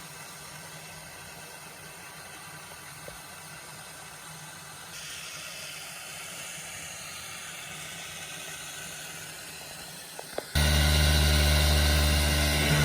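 A faint steady hiss, then, near the end, a loud steady machine hum that starts suddenly and runs at an even speed.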